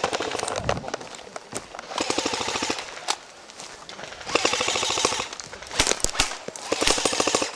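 Airsoft guns firing on full auto: several short bursts of rapid, evenly spaced shots, each burst lasting under a second.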